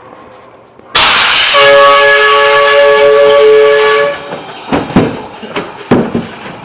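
A sudden loud blast of hissing air with a steady horn-like chord, starting about a second in and lasting about three seconds: a haunted-house scare effect. A few sharp knocks follow.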